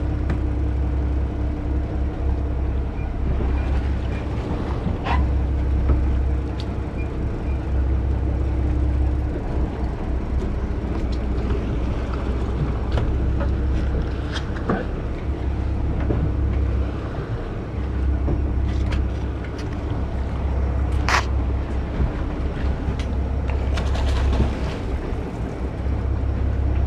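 Heavy low rumble of a sport-fishing boat at sea, wind buffeting the camera's microphone over the hull and engine noise, swelling and dropping in stretches. A few sharp clicks or knocks stand out, the loudest about 21 seconds in.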